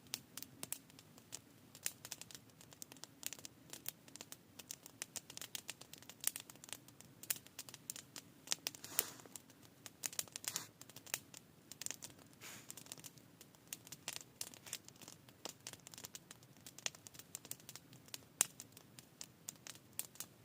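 Wood campfire crackling, with many irregular snaps and pops, a few of them louder.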